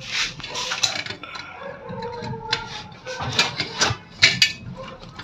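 Irregular metallic clicks and knocks of a screwdriver working a screw and parts being handled on a laminator's sheet-metal frame and roller mechanism during reassembly.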